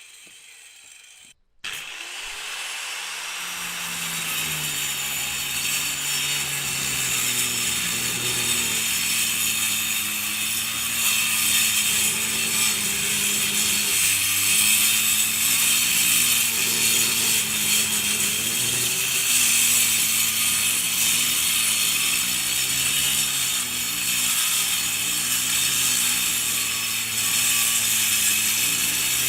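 Angle grinder cutting concrete. After a brief gap near the start the tool comes in, its motor hum sinking in pitch as the disc bites in, then a steady harsh grinding hiss with the motor hum underneath.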